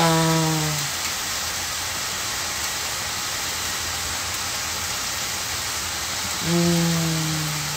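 Food frying in a pan with a steady sizzle. A person's voice gives a short, held hum over it twice: once at the start and once near the end.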